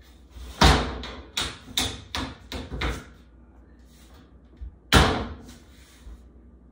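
Steel shelf beam being knocked down by hand into the slots of a boltless metal shelf's uprights: a quick run of six sharp metal knocks, then a single loud knock about five seconds in.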